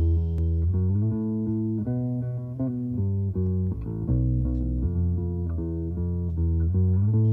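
Experimental rock from a cassette recording: a bass guitar and guitar play a riff, with a heavy low end and notes changing every second or so.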